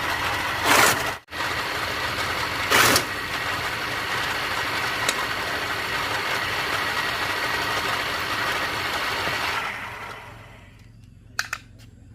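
Livestock feed processing machine running steadily with a dense mechanical din and a steady whine, two brief louder surges near the start, then winding down and stopping about ten seconds in, followed by a couple of sharp clicks.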